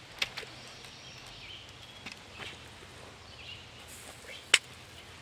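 Outdoor background with faint bird chirps, broken by a few sharp clicks or snaps. The loudest comes about four and a half seconds in.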